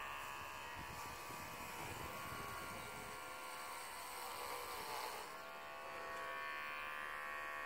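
Cordless electric hair clippers buzzing steadily as they shave hair off a head. The pitch sags briefly about five seconds in.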